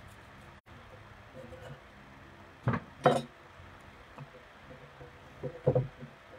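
Kitchen dishes and utensils knocking together: two sharp knocks in quick succession about halfway through, then a few more near the end, over a steady low background noise.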